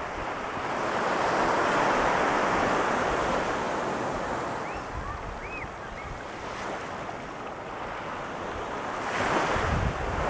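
Ocean surf breaking and washing up a sandy beach: one wave's rush swells about a second in and fades, and another builds near the end. Wind buffets the microphone.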